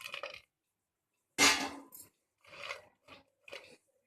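Crisp batter-fried okra strips (bhindi kurkure) being tipped onto a serving plate: one loud clatter about a second and a half in, then a few short crackly rustles as the pieces settle and are moved.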